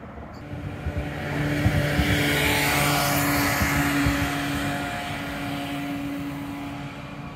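An electric tram passing close by, its loudest stretch between about two and four seconds in and then slowly fading. Wheels rumble on the rails over a steady hum from the traction drive.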